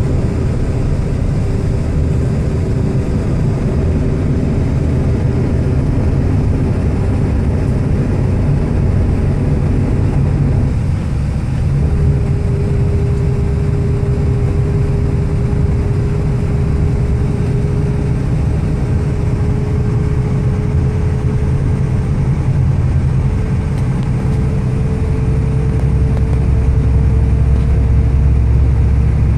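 Steady low rumble of engine and tyres heard from inside a moving vehicle, with a faint whine that becomes clearer about halfway through and slowly rises in pitch.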